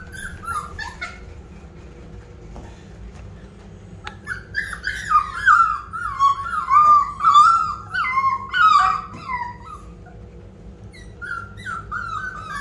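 Rottweiler puppies whining and yipping: short, high-pitched cries that come sparsely at first, then in a rapid, loud run through the middle, and a few more near the end.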